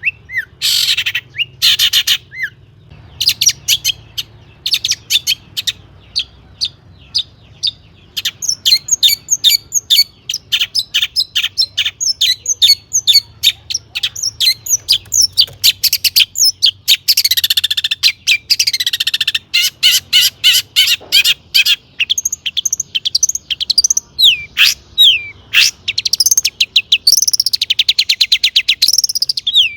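Long-tailed shrike (cendet) singing: a fast, busy run of short high-pitched notes and chatters, sparse at first and then continuous, with a long falling sweep past the middle and a rapid trill near the end; its song is filled with mimicked calls of other birds.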